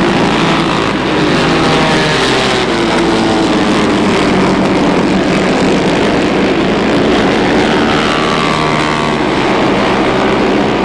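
A pack of vintage 1970s flat-track racing motorcycles running hard, several engines at once, their notes rising and falling in pitch as they accelerate and pass.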